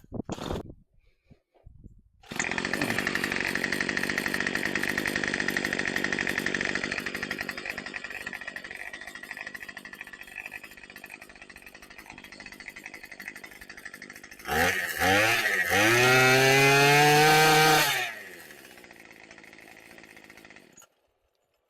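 Two-stroke gas string trimmer engine starting and running, now running again on its new fuel line. About two seconds in it fires and runs, settling to a lower idle. Near the end it is throttled up to a high whine for a few seconds, then drops back and shuts off.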